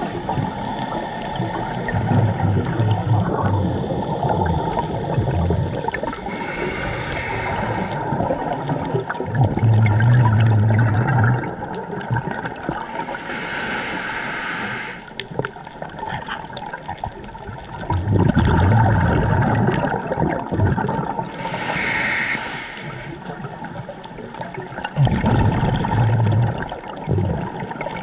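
A scuba diver breathing through a regulator: a hiss on each inhale, then a low, gurgling rush of exhaled bubbles, repeating about every seven seconds.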